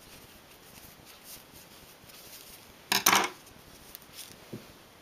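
Faint rustling of a knitted toy being handled, with one short, sharp clatter of a hard object about three seconds in and a light knock soon after.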